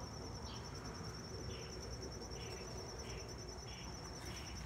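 A steady, high-pitched insect trill, with a lower chirp repeating about once a second, over a low steady rumble.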